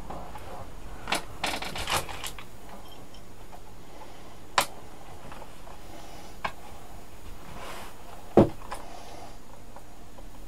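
Scattered sharp plastic clicks and snaps as the bottom cover of an MSI GF63 laptop is pried loose and its retaining clips pop free. There is a quick run of clicks in the first couple of seconds, then single clicks, the loudest about eight seconds in.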